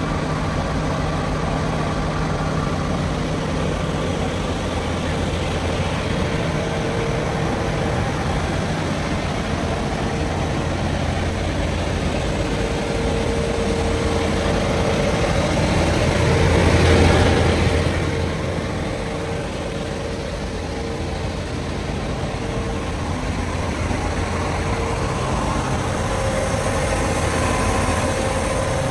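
John Deere 9RX 590 four-track tractor's diesel engine idling steadily, growing louder for a couple of seconds midway through.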